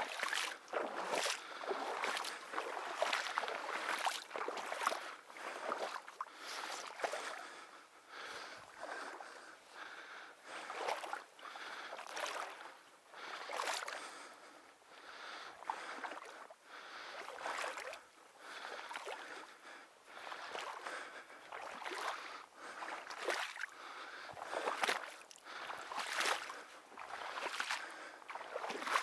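Footsteps wading through shallow marsh water: rhythmic splashing and sloshing, about one step a second.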